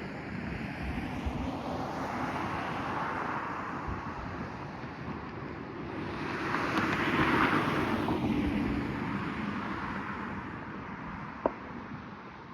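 Outdoor background of wind on the microphone and road traffic, with a car passing and swelling louder about halfway through, then fading. A short click near the end.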